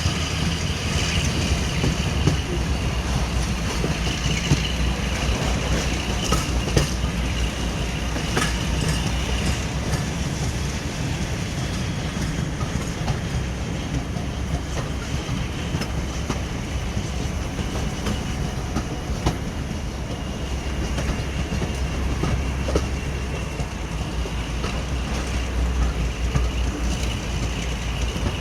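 Diesel-hauled train running on the rails: a steady low engine drone, wheels clicking over rail joints, and a faint thin high squeal at times.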